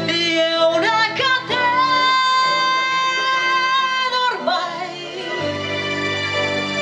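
A young singer singing live into a microphone, amplified through a PA speaker over a backing track. Her voice climbs in quick steps over the first second and a half, then holds one long high note for about three seconds before breaking off.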